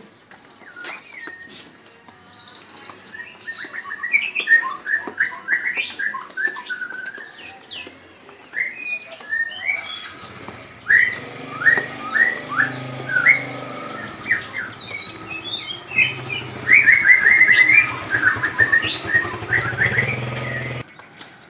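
Songbirds chirping in quick runs of short notes, loudest near the end. From about halfway a low, steady motorcycle engine hum runs underneath.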